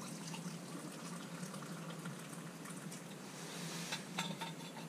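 Tea being poured from a stainless steel thermos into a metal cup, a faint running trickle of liquid. A few light clicks come about four seconds in as the thermos is tipped back upright.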